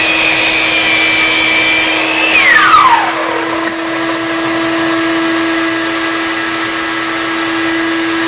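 Chop saw cutting the end off a wooden dowel: the motor's high whine holds steady, then drops quickly in pitch as the blade spins down about two and a half seconds in. A shop vacuum on the saw's dust hose hums steadily underneath.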